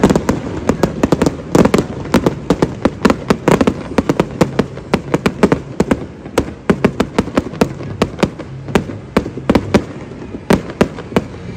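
Aerial fireworks going off in a rapid barrage: sharp bangs and crackles several times a second, thinning to a few separate bangs near the end.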